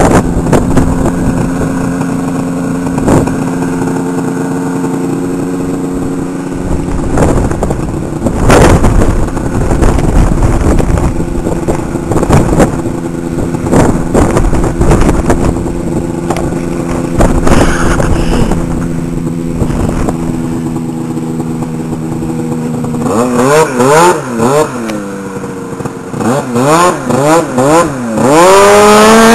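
Two-stroke snowmobile engine idling steadily. About 23 s in it is blipped up and down several times, then revved hard to a sustained high pitch near the end as the sled pulls away over open water.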